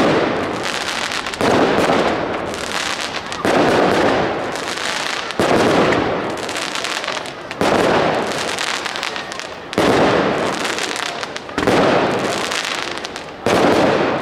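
Consumer-grade aerial firework shells bursting about every two seconds, each sudden bang trailing off into a fading noisy tail.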